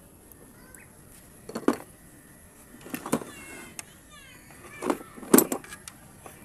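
Handling noise from an opened plastic blender motor housing and hand tools being moved and set down on a tabletop: four short clusters of clicks and knocks, the loudest a little after five seconds in.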